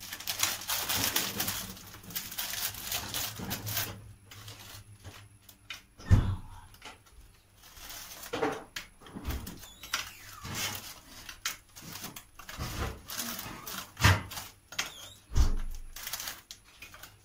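Crinkling and rustling of a plastic wrapper as packaged etimek rusks are unwrapped, with a few sharp knocks as the dry rusks are set down in a glass baking dish.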